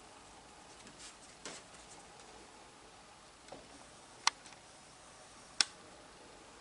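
Quiet background with a few faint ticks, then two sharp, loud clicks a little over a second apart in the second half.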